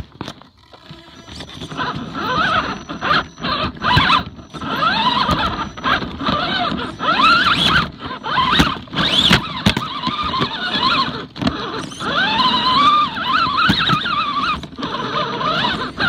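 Axial Wraith RC rock crawler's electric motor and gears whining, the pitch rising and falling with the throttle as it climbs over rock, with scattered sharp knocks and clicks of the chassis and tyres against stone.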